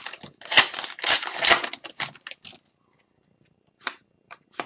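Foil wrapper of an Upper Deck hockey card pack crinkling and tearing as it is ripped open by hand for about the first two and a half seconds, followed by a couple of faint brushes of the cards being handled.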